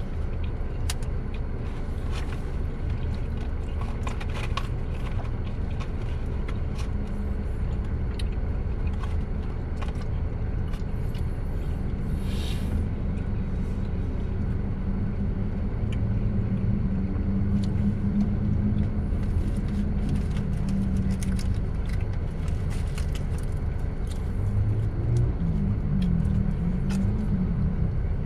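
Low, steady rumble of an idling car heard from inside its cabin, with faint scattered clicks and one short hiss about twelve seconds in.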